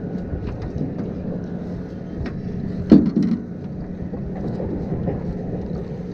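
Rope hauled in hand over hand over the side of an aluminium boat, with rustling handling noise and a single loud knock about three seconds in, over a steady low hum.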